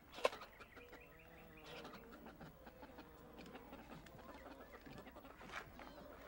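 Faint clucking of hens, with a sharp knock about a quarter second in and scattered clicks and rustling as a bowl is scooped through a bin of grain.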